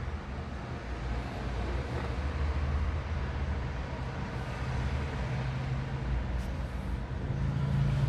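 A steady low mechanical hum, like a running vehicle engine, that grows somewhat louder near the end.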